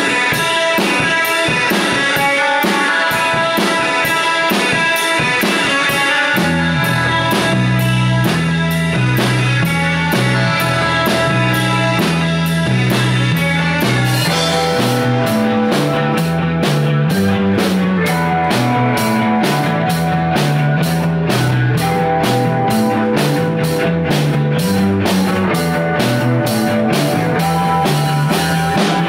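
Live rock band playing an instrumental passage on electric guitars and a drum kit. A low bass line comes in about six seconds in, and about halfway through the drums settle into a faster, even beat.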